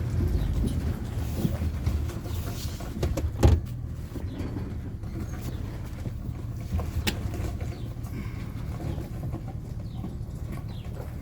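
A vehicle creeping along slowly on a flat tire, its engine a steady low rumble, with a few sharp knocks, the loudest about three and a half seconds in.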